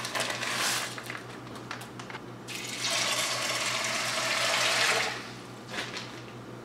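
Water poured into an enameled cast-iron pot of dried black-eyed peas: a steady splashing rush of about two seconds, beginning a little under halfway in, after a few faint clicks. A single light knock near the end as the lid is set on the pot.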